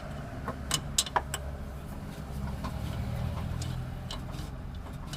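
Sharp knocks and clicks from a 2013 Ford EcoSport's stabilizer bar being worked by hand with its end links off. The worn stabilizer bar bushings are the cause of the suspension clunk over speed bumps. There are a few sharp knocks in the first second and a half, then fainter clicks, over a steady low hum.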